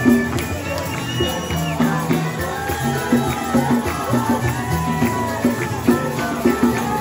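Live praise-and-worship music played on an electronic keyboard, with a steady, bouncing bass beat and percussion.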